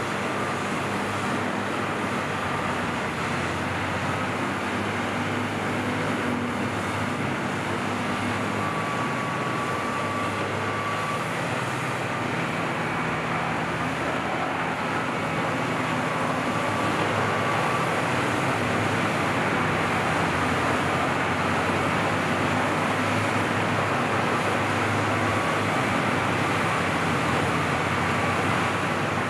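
Peterson 1700D horizontal grinder running under load, grinding waste wood with a steady loud mechanical din over a low engine hum. A faint high whine comes and goes, and the noise grows a little louder about halfway through.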